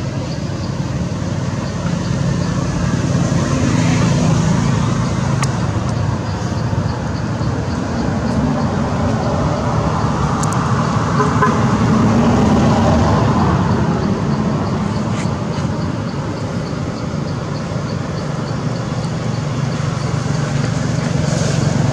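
Road traffic: a vehicle engine running with a steady low hum under a wash of traffic noise that swells and eases over several seconds.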